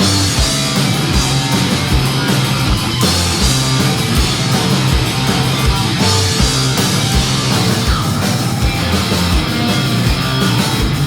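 Punk rock band playing live: an instrumental passage with guitars, bass and drums, a steady kick-drum beat driving it.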